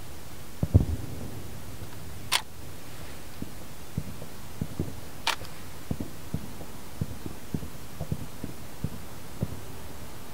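Distant fireworks shells bursting, heard as a run of dull low booms: the loudest just under a second in, then many smaller ones about every half second. Two sharp clicks stand out, about two seconds in and about five seconds in.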